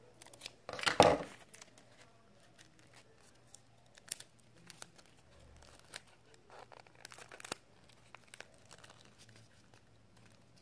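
Paper and clear tape being handled for a craft: a short loud tearing sound about a second in, then light crinkling and scattered clicks.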